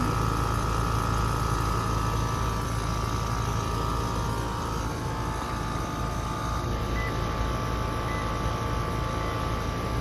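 American Standard Silver series central air conditioner condensing unit running: a steady rush of air from the condenser fan over a low, even hum, with a faint steady whine.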